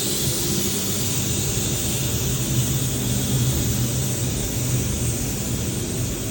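Steady machinery running: a low, even hum with a constant hiss over it.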